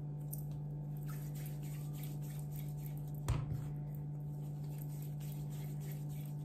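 A steady low hum, with one thud about three seconds in as a ball of dough is set down on a glass worktop.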